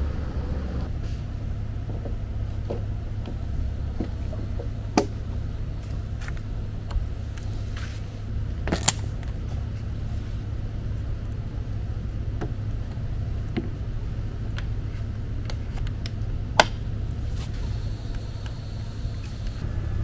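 A steady low rumble, with a few sharp clicks scattered through it as a heavy power cord and plug are handled at the battery unit.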